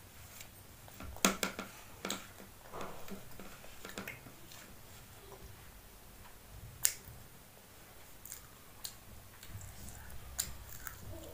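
A child eating appe with her fingers: scattered sharp clicks and smacks from chewing and from handling the food on a plastic plate.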